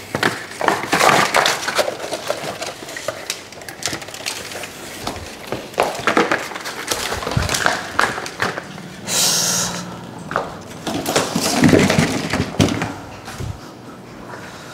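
Cardboard boxes and packaging being handled and shifted: irregular knocks, scrapes and rustles, with a short hissing rustle about nine seconds in.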